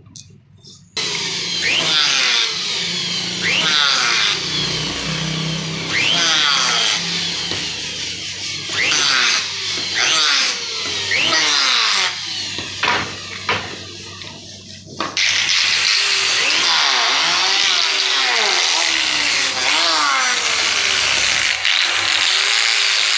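Electric hand planer cutting wood in repeated passes, starting about a second in, its motor pitch sagging and recovering with each stroke. After a brief lull about two-thirds of the way through, it runs on steadily.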